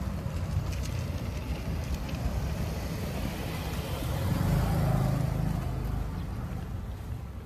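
Street traffic noise: a car passing close by, its engine and tyre noise rising to a peak about halfway through and then fading.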